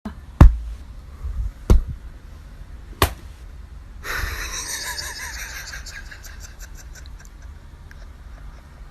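Three sharp knocks, about a second apart, followed by a softer hissing, rustling noise that slowly fades.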